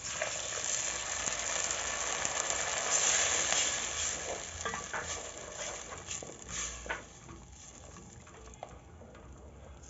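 Blended tomato sizzling loudly as it hits hot oil with fried onions, ginger, garlic and tomato paste in the pan. It is stirred in, with a few spoon knocks against the pan, and the sizzling dies down after about seven seconds as the liquid cools the oil.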